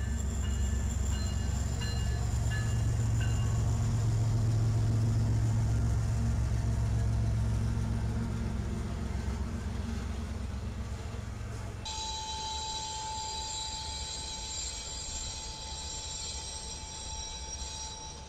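Diesel freight locomotives passing with a deep, steady engine drone. About twelve seconds in it changes abruptly to freight cars rolling by with a steady high-pitched wheel squeal.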